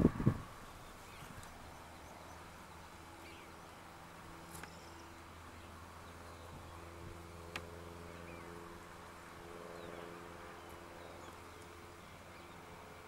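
Short loud burst of noise at the very start, then the faint, steady hum of a distant Boeing 707's jet engines as the freighter taxis, with a couple of faint clicks.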